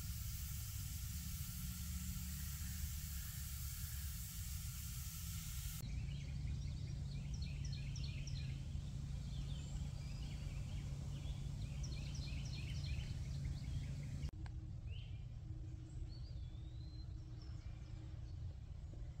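A steady hiss for the first few seconds, then songbirds chirping and calling in quick runs of short notes, thinning to a few scattered calls after an abrupt change near the end.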